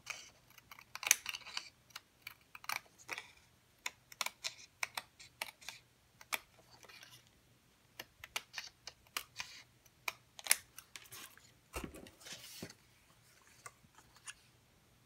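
Scissors snipping through black cardstock in a run of short, sharp, irregular cuts, with some light paper rustling.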